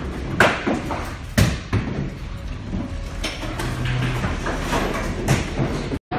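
Heavy thuds and knocks aboard a ship's bridge rolling in a storm, over a steady rush of wind and sea. The two loudest thuds come about half a second and a second and a half in, with smaller knocks after, and the sound cuts off abruptly near the end.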